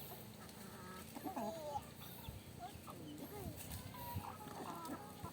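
A flock of free-range chickens clucking softly as they feed, with many short, overlapping calls, some of them rising or falling.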